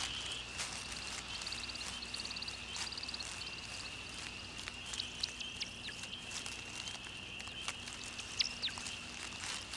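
Woodland ambience: a steady high-pitched chirring drone, with a fast pulsing trill in the first couple of seconds and a few short chirps and light clicks scattered through the rest.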